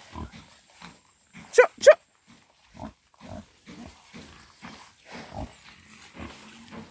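Pigs grunting in short, repeated low grunts, with two louder, sharper calls about one and a half to two seconds in.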